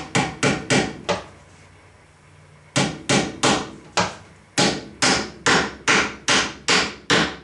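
Hammer driving nails through a wooden panel into the wooden hive box: quick, even strikes about three a second, in three runs broken by short pauses about a second in and about four seconds in.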